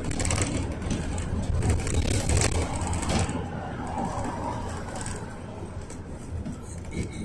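Inside a moving GAZelle Next minibus: its Cummins 2.8-litre four-cylinder turbodiesel runs under way with a steady low rumble and road noise, with a cluster of clicks and rattles over the first three seconds.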